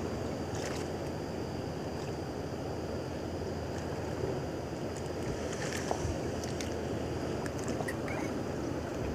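Steady wind and sea-water wash around a small outrigger fishing boat, with a few faint clicks.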